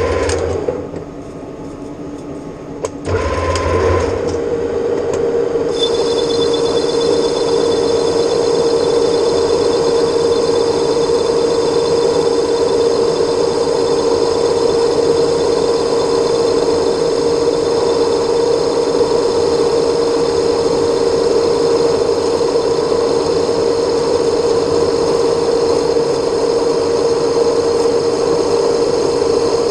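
Metal lathe running steadily with an even mechanical hum. It drops back briefly about a second in and picks up again near three seconds. About six seconds in, a thin high-pitched ringing joins and holds steady.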